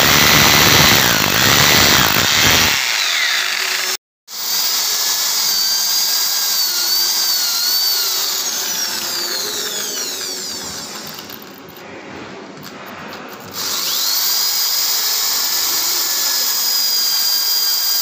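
Hand-held electric drill boring into a step with a masonry bit, the grinding loud for the first few seconds. After a brief break, the drill motor whines at a high pitch, its pitch wavering and sliding down for a moment and then running steady again.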